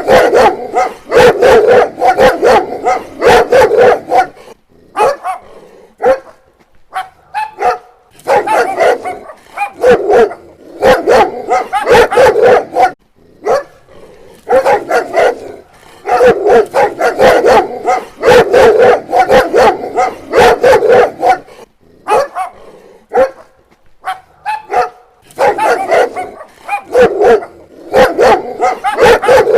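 Dog barking in rapid bouts of many quick barks, four bouts with short pauses between them.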